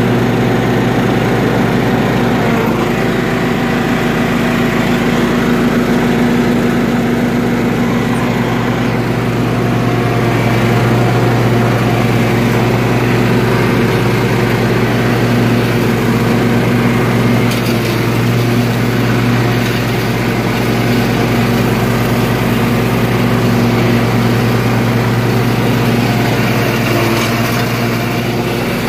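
Toro riding lawn tractor's engine running steadily at an even speed while it mows grass.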